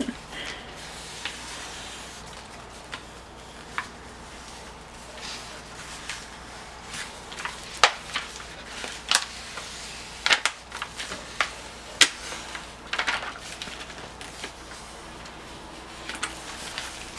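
Black iron-on vinyl and its clear plastic carrier sheet being peeled and handled, with light rustling and scattered sharp crackles and ticks, most of them in the middle stretch.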